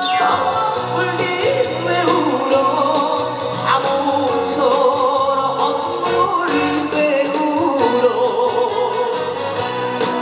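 Live trot song: a male singer's voice over loud backing music with a steady band accompaniment.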